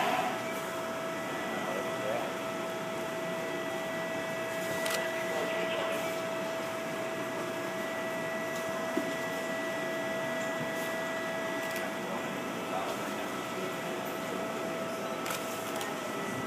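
Steady machine hum with a noisy hiss and a faint high steady whine that fades out about twelve seconds in, with a few soft clicks.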